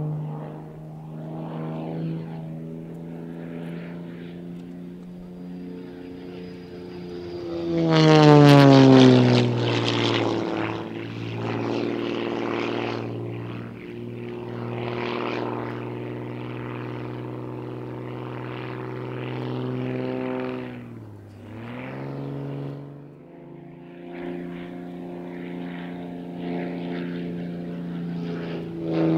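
Propeller aerobatic plane's piston engine heard from inside the cockpit, droning steadily with its pitch shifting through manoeuvres. About eight seconds in it surges loudly and its pitch slides down, and a little past twenty seconds it dips briefly before picking up again.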